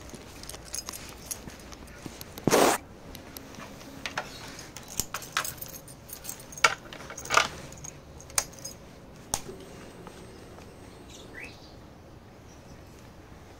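Scattered sharp clicks and clinks of small hard objects being handled, with a louder short rustling knock about two and a half seconds in.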